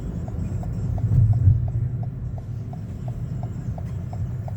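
Car cabin road rumble with a turn-signal indicator ticking evenly, about three ticks a second.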